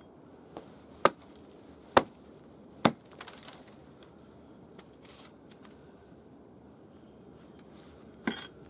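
Hatchet chopping wood on a wooden chopping block: three sharp strikes about a second apart, a few lighter taps, then a quick double knock near the end.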